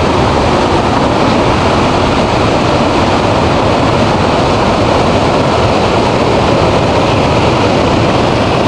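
Waterfall and flooded creek in high water, rushing: a loud, steady wash of water noise with no letup.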